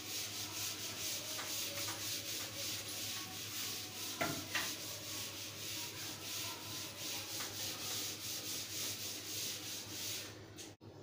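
A board duster rubbing back and forth across a chalkboard, wiping off chalk writing in quick, even strokes of about three a second. The rubbing stops near the end.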